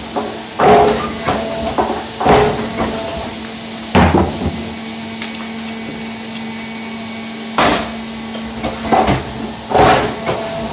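Granite being split into cubes on a hydraulic stone-splitting machine: a steady machine hum under repeated sharp, briefly ringing clacks of stone cracking and striking the steel table. The clacks come in a quick cluster in the first few seconds and once about four seconds in, stop for a few seconds, then resume near the end.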